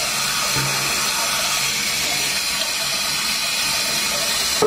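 Deca close-coupled toilet cistern refilling: water hissing steadily through the fill valve into the tank.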